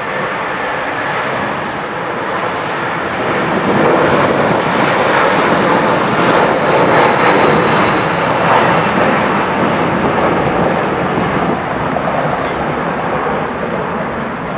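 Boeing 747-400's four Rolls-Royce RB211 turbofan jet engines at departure thrust, a loud steady roar. It swells a few seconds in, is loudest in the middle with a faint high whine, and eases slightly near the end.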